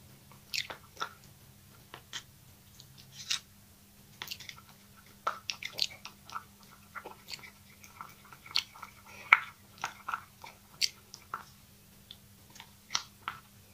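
A stick stirring thick two-part epoxy resin and hardener in a plastic cup: irregular scrapes and clicks against the cup wall as the two parts are mixed together.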